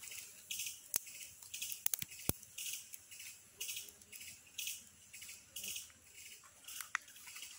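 Campfire being fed with sticks: a few sharp cracks and knocks of wood between about one and two seconds in. Behind them, insects call in a steady high pulse about once a second.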